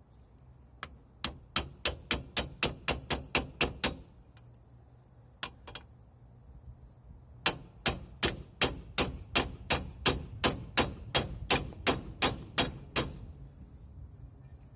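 Hammer striking a chisel against steel to drive a Ford Transit Connect front ball joint, sharp ringing metallic blows at about four a second. About a dozen strikes come in a run, then a single blow, then a longer run of about twenty.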